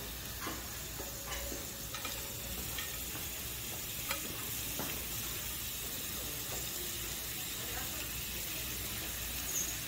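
Slices of pork belly sizzling on a tabletop barbecue grill plate: a steady frying hiss scattered with small pops and crackles.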